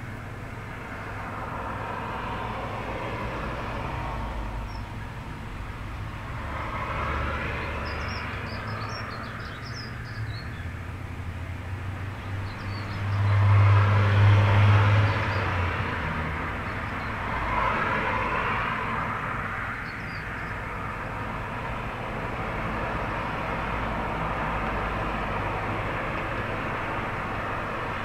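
Road traffic passing in waves, each vehicle's noise swelling and fading over a few seconds, with the loudest pass about halfway through carrying a low rumble. A few faint, short, high chirps from small birds come through now and then.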